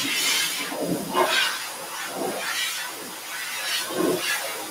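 High-velocity dog grooming dryer blowing air through its hose nozzle onto a wet dog's coat. The rushing air swells and fades as the nozzle is moved over the body.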